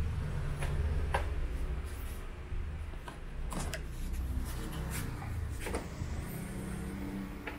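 Epson L120 inkjet printer running its paper feed: a steady motor hum with several sharp clicks from the mechanism as a freshly replaced pick-up roller draws in a single sheet from a stack of two, so the multi-feed fault is cured.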